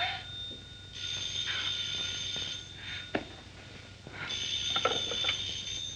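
Telephone bell ringing twice, each ring about a second and a half long with a pause between, then answered. A single click sounds between the two rings.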